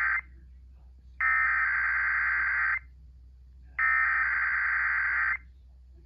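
Emergency Alert System SAME header tones, the screechy digital data bursts that open a Required Weekly Test, heard through an FM radio's speaker. The end of one burst, then two more, each about a second and a half long with about a second between.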